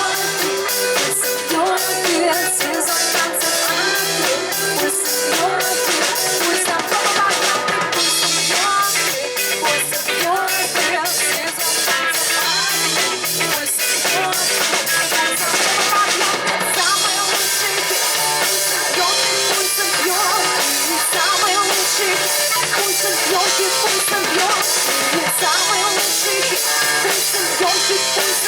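A live rock band playing, with a full drum kit keeping a steady beat under the guitars and keys.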